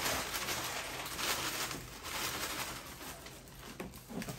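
Cereal flakes pouring from a plastic bag into a clear plastic container: a continuous dry rustle of flakes and crinkling bag that swells and eases several times.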